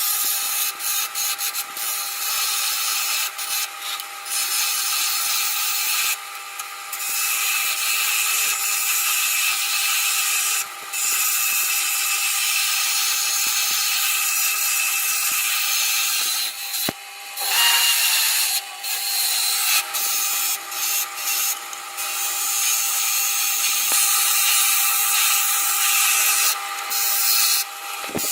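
Wood lathe turning while a turning gouge cuts a wooden blank round, a steady hissing scrape over the lathe's motor whine, broken by several short gaps.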